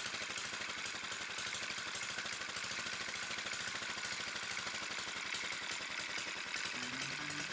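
1948 Whizzer single-cylinder four-stroke motor bike engine running steadily with a rapid, even firing beat, on its freshly cleaned and rebuilt carburetor.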